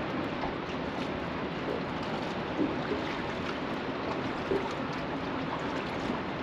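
Steady rush of choppy river water, with a couple of faint knocks about two and a half and four and a half seconds in.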